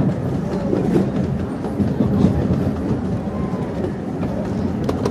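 Miniature park railway train running steadily along its track: a continuous noise of wheels and cars.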